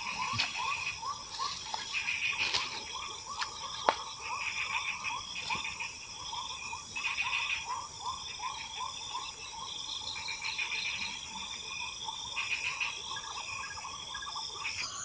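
Swamp wildlife chorus: a steady high drone of insects, with a short chirping call repeated about three times a second and pulsing calls over it. A few sharp clicks break in, the loudest about four seconds in.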